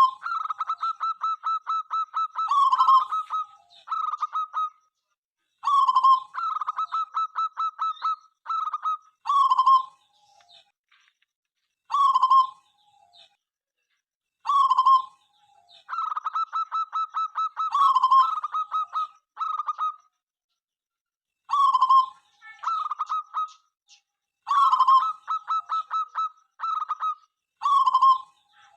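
Zebra dove (perkutut) cooing in repeated phrases. Each phrase opens with a lower bending note, runs into a fast string of short, even notes and ends with a few separate notes, with brief pauses between phrases.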